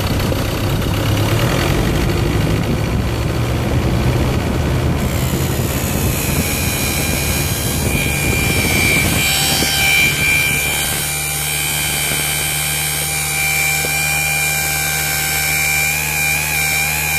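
Mazda BT-50's 2.2-litre turbo diesel revved up and held at about 2,300 rpm. From about five seconds in there is a steady high turbo whistle over a rush of air. The engine has a split boost hose between the intercooler and the intake, a fault that sets code P00BD.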